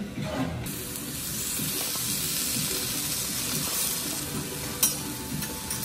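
Vegetables sizzling on a hot steel teppanyaki griddle, the hiss starting suddenly under a second in and easing off near the end, with a sharp metal click near the end.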